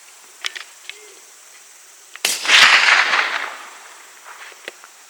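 A single rifle shot about two seconds in, ringing out and dying away over about a second, aimed at a deer at long range. A few faint light clicks come before and after it.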